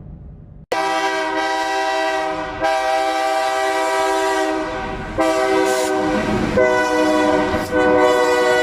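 Train horn sounding a long multi-note chord that swells louder several times and cuts off abruptly at the end.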